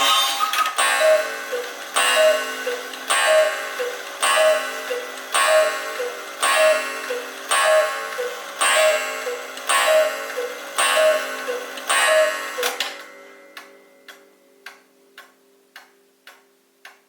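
Antique quail cuckoo clock striking eleven: eleven cuckoo calls about a second apart, each two falling notes with a struck tone that rings on. After the last call the clock's ticking carries on alone, fainter.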